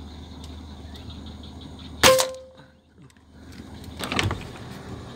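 A single sharp air rifle shot about two seconds in, with a brief metallic ring that dies away within half a second. About two seconds later comes a second, quieter burst of noise.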